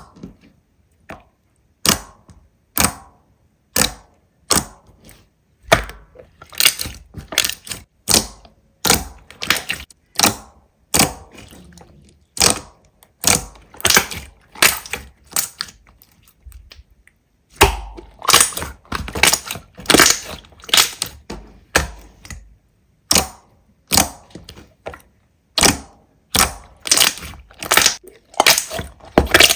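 Slime being pressed and poked by hand, giving sharp clicks and crackling pops about one to three a second, with a short pause a little past the middle.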